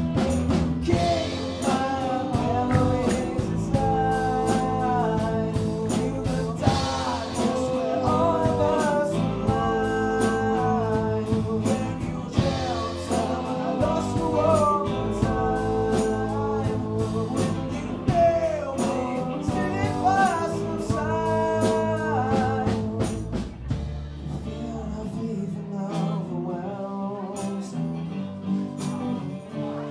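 A live rock band playing an original song, with a lead vocalist singing over electric guitars, bass, keyboard and drums. About three-quarters of the way through, the bass drops out and the band plays more quietly, coming back in full just at the end.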